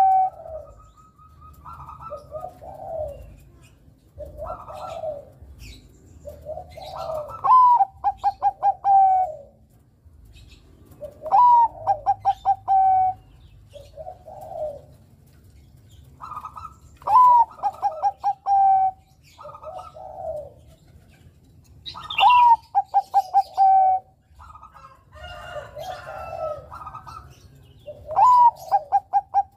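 Bangkok-strain zebra dove (perkutut) cooing: a song phrase repeats about every five seconds, each a rising note followed by a quick run of short clipped coos and a lower trailing coo. Softer, lower coos fill the gaps between phrases.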